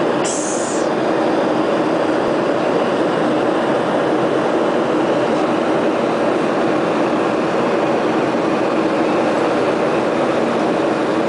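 Airliner cabin noise at cruise: the steady rumble of the jet engines and the airflow over the fuselage, heard from inside the cabin.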